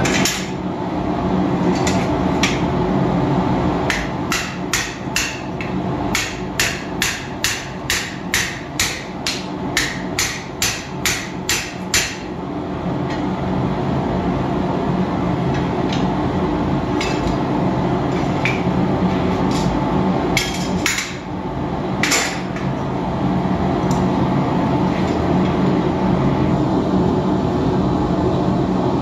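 Blacksmith's hand hammer striking hot steel on the anvil: a few scattered blows, then a steady run of about two blows a second for some eight seconds, and a few more blows later. A gas forge's steady rumble runs underneath.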